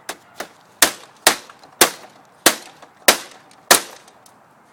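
A series of sharp knocks or clacks, about eight of them roughly half a second apart, hard strikes on a printer part that is stuck fast while it is being worked loose.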